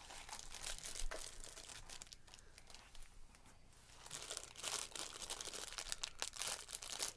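Plastic and paper packaging of a small blind-box collectible figure crinkling and tearing as it is unwrapped by hand. A stretch a few seconds in is quieter, and the crackling is denser and louder over the second half.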